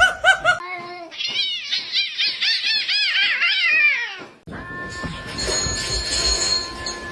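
A cat meowing, then a rapid run of short, high-pitched kitten-like mews, about four a second for some three seconds. The sound cuts off suddenly after about four and a half seconds, and a steady high-pitched tone with a low background follows.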